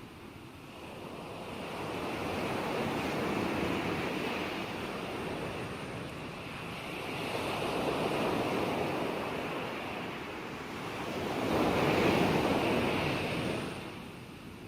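Ocean surf: waves swelling and ebbing in slow surges, three of them about four seconds apart, the last the loudest.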